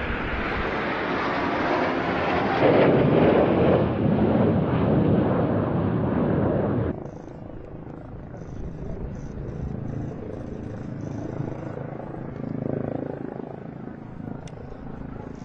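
Red Arrows BAE Hawk jets passing overhead in a flypast: a loud, even jet rush that peaks about three seconds in and cuts off suddenly near seven seconds. Quieter background noise follows.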